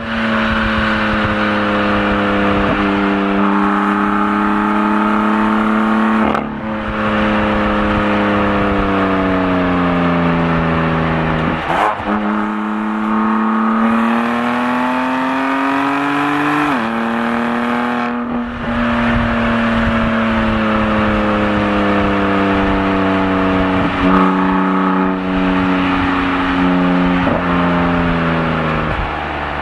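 BMW M4 Competition's twin-turbo 3.0-litre straight-six engine and exhaust pulling under load. The revs rise and fall as the car drives, and several gear changes show as quick breaks in pitch.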